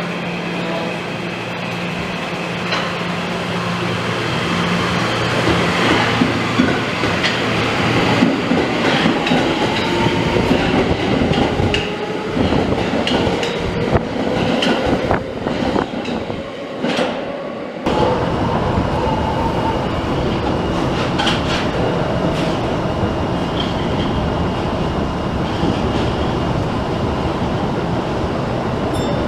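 Electric commuter train running, its traction motor whine climbing steadily in pitch as the train picks up speed over wheel clatter on the rails. The sound changes abruptly a little past halfway.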